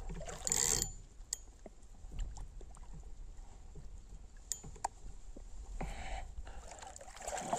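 Pond water splashing and sloshing as a hooked carp is brought into a landing net at the bank: a short burst of splashing about half a second in, another around six seconds, and a louder one at the very end, with scattered small clicks in between.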